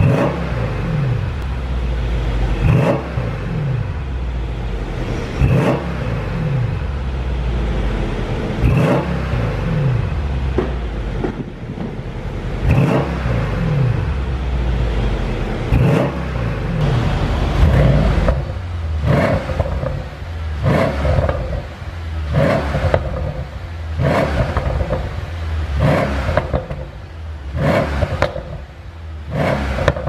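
Mercedes-AMG S 63's 5.5-litre twin-turbo V8 revved in repeated blips while stationary, each rev falling away with sharp pops and crackles from the exhaust. The pops come from a pop-and-crackle engine tune on the stock exhaust. The blips come faster in the second half.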